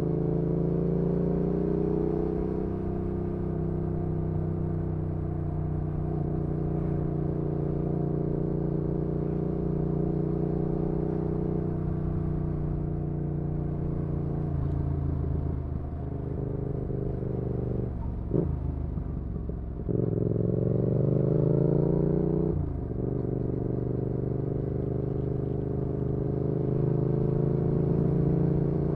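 2019 Yamaha XSR700's parallel-twin engine running through an IXRACE MK2 aftermarket exhaust while the bike cruises at steady revs. About halfway the revs fall and briefly flick up and down, then climb under acceleration and drop sharply at a gear change before settling back to a steady cruise.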